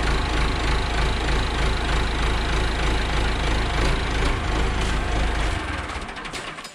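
Landini 8880 tractor's diesel engine running just after being started, then dying away in the last second or so as it stalls. It is starved of fuel, with air left in the fuel system after the fuel filter change.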